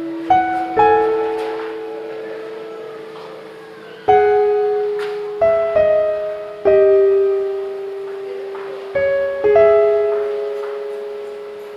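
Slow, sparse solo piano music: single notes struck one to a few seconds apart, each left to ring and fade out.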